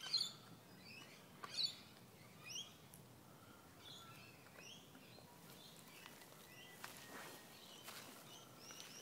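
Birds chirping repeatedly, with a few faint clicks from a puppy gnawing a bone.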